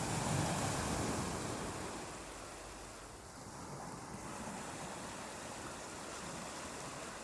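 Ocean surf: a wave breaks at the start and its wash fades away over the next couple of seconds, leaving a steady, quieter hiss of surf.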